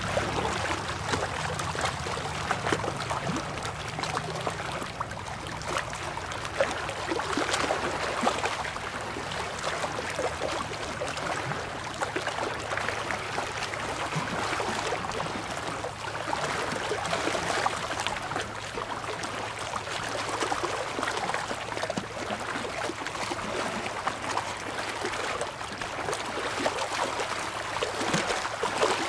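Small waves lapping and washing over shoreline rocks, a continuous splashing, fizzing wash that swells and ebbs every few seconds.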